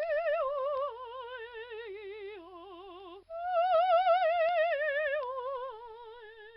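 Closing music: a single wavering melody line with heavy vibrato. It falls in steps over two phrases, the second starting about three seconds in, and fades out near the end.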